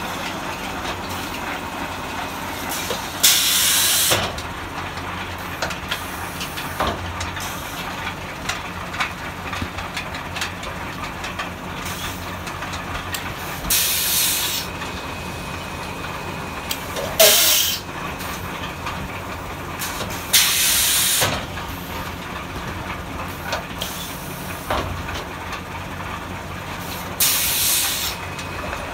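İSKOM silage packing machines running with a steady mechanical hum, broken by five short, sharp hisses of released air spread unevenly across the time, each under a second long.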